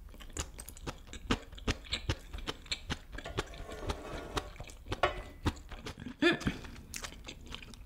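Close-miked eating sounds: a wooden spoon scraping and tapping a black pan to gather the last grains of fried rice, with chewing and lip smacks, heard as a string of short, sharp clicks.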